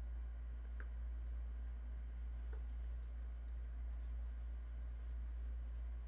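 A few faint, scattered computer mouse clicks over a steady low hum.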